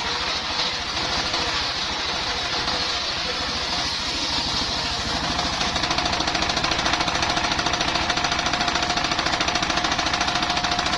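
Engine-driven circular sawmill running, its engine chugging with a fast, even beat. From about halfway through, a steady hum joins it and the beat grows more regular.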